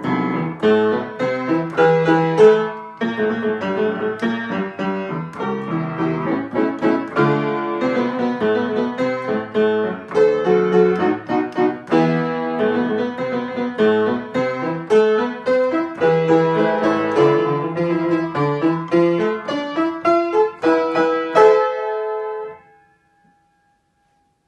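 Solo upright piano playing a lively classical piece with many quick notes. Near the end it closes on a few loud chords, then the sound stops about 22 seconds in.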